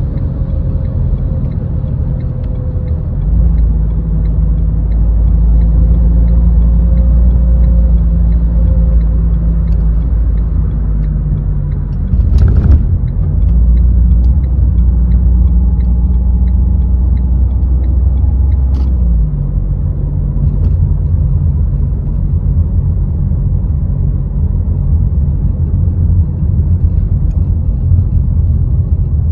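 A Renault car's engine running with road rumble while driving in city traffic, a steady low hum throughout. There is a sharp knock about twelve seconds in, and the engine note drops about two-thirds of the way through as the car eases off.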